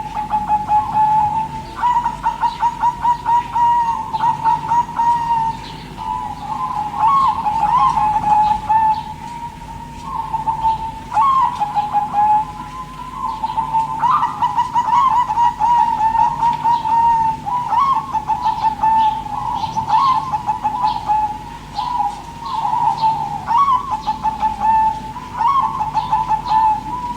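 Zebra dove (perkutut) cooing: runs of rapid, rolling staccato coos near one pitch, repeated phrase after phrase with only short pauses between.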